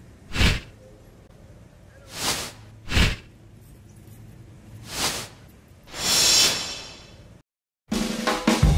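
A series of whoosh sound effects: five swishes, the last one longer, each swelling and fading. Music starts near the end after a moment of silence.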